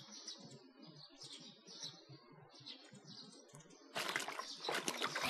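Faint birds chirping. About four seconds in, louder splashing and scrubbing of laundry in a wooden wash tub of soapy water starts.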